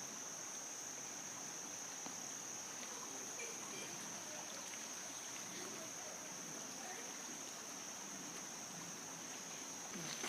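Insects chirring in a steady high-pitched chorus over a soft even hiss.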